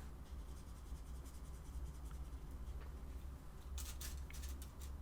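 A watercolour pencil scribbling on paper: soft scratchy strokes, then a quick run of sharper strokes about four seconds in, over a low steady hum.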